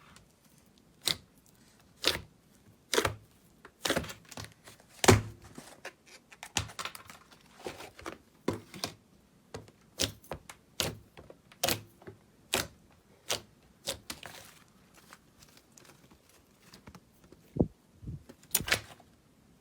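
Slime being worked by hand, giving a run of sharp clicks and pops, roughly one a second and uneven, with softer crackling between them.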